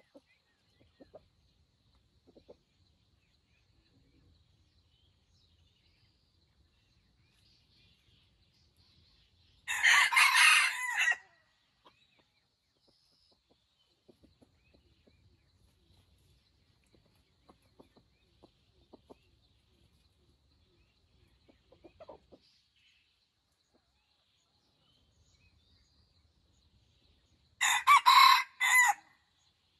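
Junglefowl rooster crowing twice, two short crows about 18 seconds apart, the second near the end.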